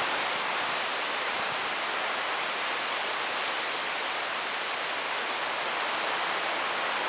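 Steady, even hiss with no other sound in it.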